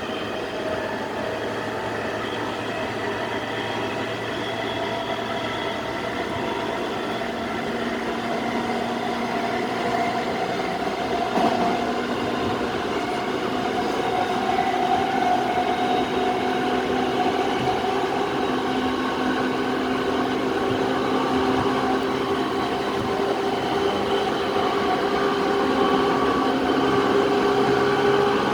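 E217 series electric train running on the Sobu Line: continuous rolling noise with a motor whine in several tones, some pitches slowly shifting, gradually getting a little louder.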